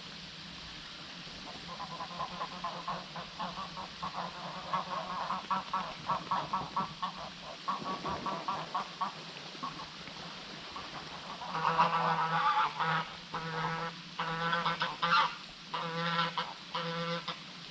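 Birds calling: a run of rapid, repeated calls for several seconds, then, after a short pause, louder and harsher calls in short groups, over a faint steady low hum.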